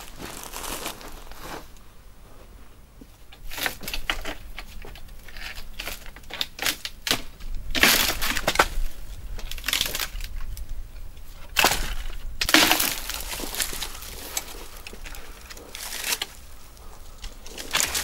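Dry branches and brush crackling, snapping and rustling as wooden poles are handled on a shelter frame, with footsteps crunching on dry forest floor. The sounds come in irregular bursts, loudest about eight seconds in and again around twelve to thirteen seconds.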